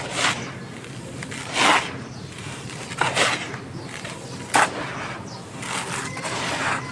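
Crunchy white chalky stones being crushed and crumbled by hand, about five separate crunches roughly a second and a half apart, the last one longer and grittier.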